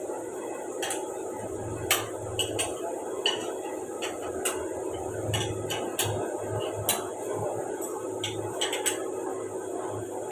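Steady machine hum with a faint held tone, broken by about a dozen irregular sharp metallic clinks and clicks, as in a CNC machine shop around a vertical machining centre.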